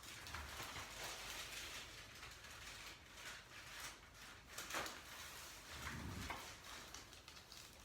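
Faint handling and rustling sounds of a chiropractor working on a patient's neck on a treatment table, with a brief soft sound about five seconds in.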